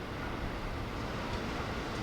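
Keihan 1000 series electric train approaching: a low rumble with a hiss, slowly growing louder.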